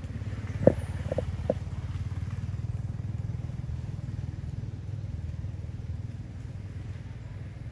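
A small motor vehicle engine running with a steady low rumble that swells a couple of seconds in and fades toward the end, with a few short squeaks in the first second and a half.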